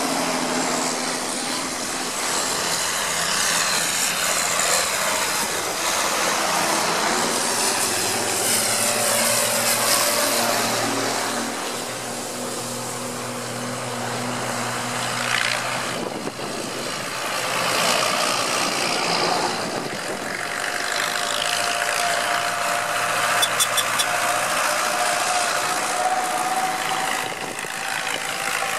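Engines of vintage and modern John Deere tractors running as they drive past one after another, the sound swelling and fading with each pass.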